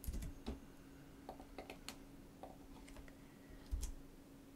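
Light, scattered clicks of a computer mouse and keyboard, about a dozen taps at an uneven pace, with one duller bump near the end.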